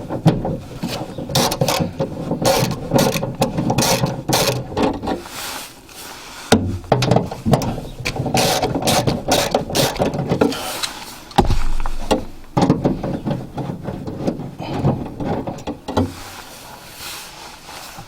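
Socket ratchet clicking as screws are undone with a 10 mm socket, in three runs of rapid clicks with short pauses between, tailing off near the end.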